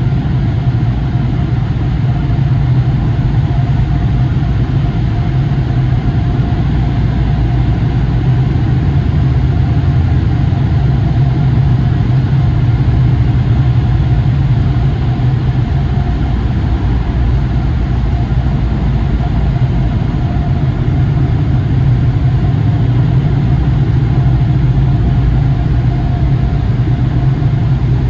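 Car-wash tunnel AeroTherm air dryers blowing, a loud steady drone with a faint steady whine, heard from inside the car's cabin.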